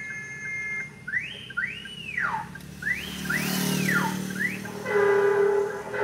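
Electronic multi-tone horn module sounding through its horn speaker: a steady high tone, then about five quick rising-and-falling pitch sweeps, then about five seconds in a loud, steady, air-horn-like blast.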